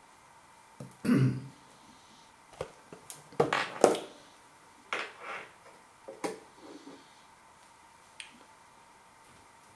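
Handling noise on a worktop: a series of sharp clicks and knocks as a cardboard box is put down and a plate is picked up, the loudest near four seconds in. A short vocal murmur comes about a second in.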